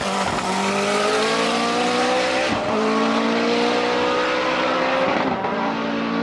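Ford RS200 Pikes Peak rallycross car's turbocharged engine under hard acceleration, revs climbing and falling back at upshifts about two and a half seconds in and again near the end. The sound grows duller as the car pulls away.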